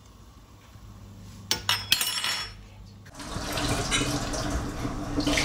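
Dumplings dropped by hand into a steel pot of boiling water, with a few quick splashes about a second and a half in. From about three seconds on there is general kitchen noise with dishes clinking.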